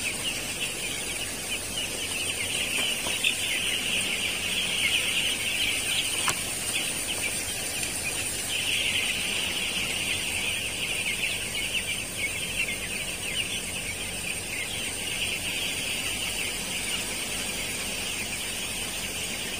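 Continuous, dense peeping of a large flock of nine-day-old broiler chicks.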